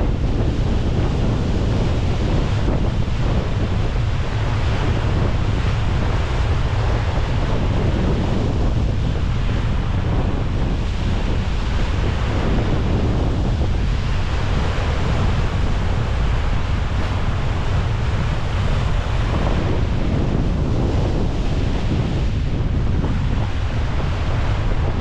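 Steady wind buffeting the microphone, over the wash of sea water around the bow of a sailing ship under way.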